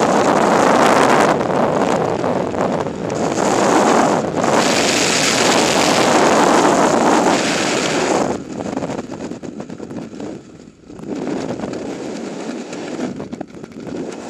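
Freefall wind rushing loudly over a helmet-mounted camera's microphone. About eight seconds in it drops off sharply to a quieter, gusting wind, as the parachute opens and the fall slows.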